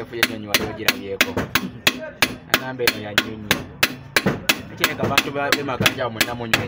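Hammer tapping on the crown of a piston, driving it through a ring compressor into a diesel engine's cylinder bore. The taps come in a steady rhythm of about three a second.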